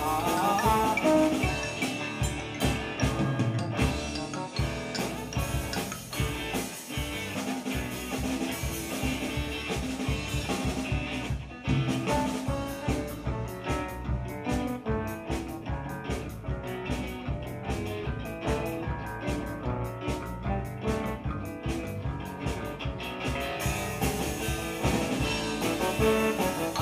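A live instrumental band playing an upbeat number: electric guitar over drum kit and keyboard. There is a short break about halfway through, after which the drums drive a steady beat.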